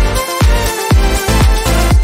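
Background music with a steady beat, about two drum hits a second.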